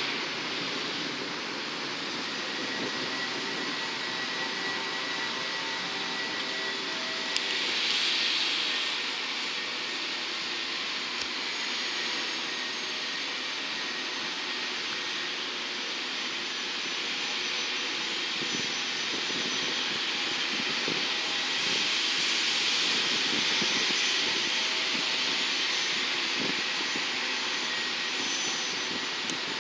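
Jet aircraft engines running: a steady rush with a faint high whine, swelling about eight seconds in and again for a few seconds past the twenty-second mark.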